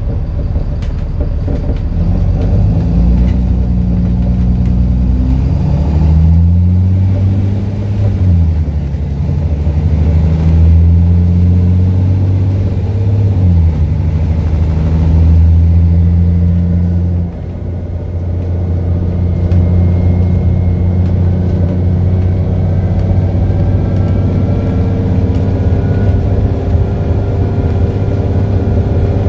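Diesel engine of an ADL Enviro400 double-decker bus with a blown exhaust, heard from inside the bus as it accelerates through its Voith automatic gearbox: the engine note rises, drops at each of two upshifts, then eases off a little past halfway and runs on steadily.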